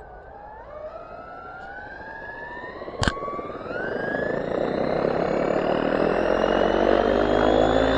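Steam 700 RC helicopter's motor and rotor spooling up on the ground: a whine that rises steadily in pitch and grows louder. A single sharp click comes about three seconds in.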